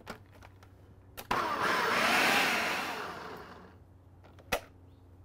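Food processor motor running in a short burst of about two seconds, blending avocado salsa ingredients, its pitch wavering as the blade churns, then winding down. A click comes just before it starts and another near the end.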